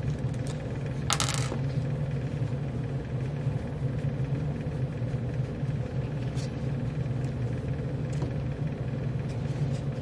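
A brief sharp plastic clatter about a second in, then a few faint light clicks, as the cap of a bottle of gel super glue is taken off and the bottle and stuffed toy are handled. A steady low hum runs underneath.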